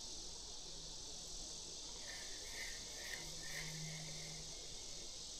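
Faint, steady high-pitched insect chorus, with a faint low hum that comes in twice.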